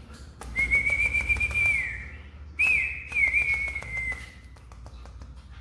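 A person whistling to call a pet, two long high whistles that dip in pitch near their ends, the second trailing off. A run of quick clicks sounds underneath.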